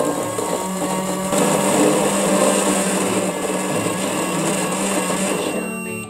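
Toy microwave running: a steady whirring hum with a hiss, cutting off about five and a half seconds in.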